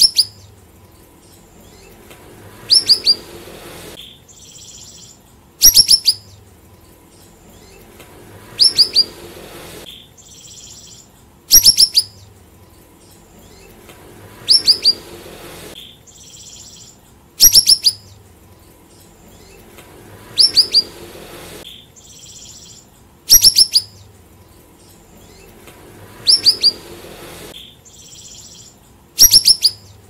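A caged siri-siri songbird calling: short bursts of a few sharp, high chirps falling quickly in pitch, repeated evenly about every three seconds.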